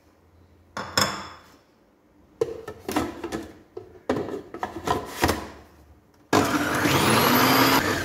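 Plastic lid and feed-tube pusher of an electric food processor being knocked and clicked into place, a series of clatters. About six seconds in, the motor starts and runs loudly with a rising whine as the blade chops soaked dried figs coarsely, then begins to wind down right at the end.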